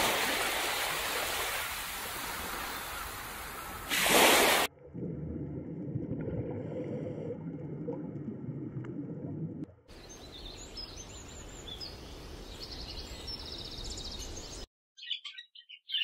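A run of nature clips. First comes a steady hiss of noise with a brief louder rush about four seconds in. Then a low underwater rumble, then outdoor noise with small high bird chirps. Monk parakeet chirping starts just before the end.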